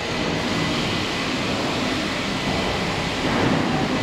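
Refuse compactor truck's engine running steadily, with a thin steady high whine over it.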